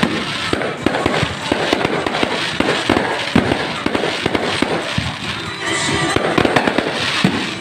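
Fireworks display: a dense, rapid run of bangs and crackles with no pause between them. Music starts to come through near the end.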